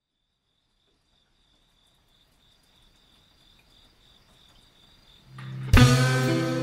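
A cricket chirping faintly, an even pulsing high trill. About five seconds in, music swells up and enters loudly with a drum hit, guitar and bass.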